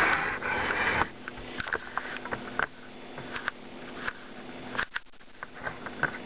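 A loud breath or sniff close to the microphone in about the first second, followed by scattered light clicks and taps from handling, over a faint steady hum.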